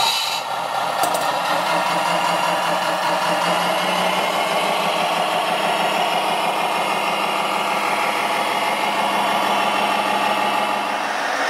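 Radio-controlled scale tractor unit running with a steady engine sound.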